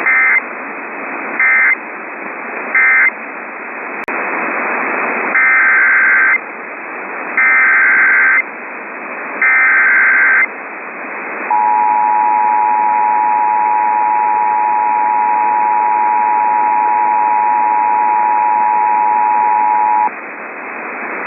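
Emergency Alert System tones over a hiss of radio static. It opens with three short buzzy data bursts, the end-of-message code that closes the preceding alert. Then come three longer data bursts of about a second each, the header of the next alert, and the two-tone EAS attention signal held steady for about eight and a half seconds.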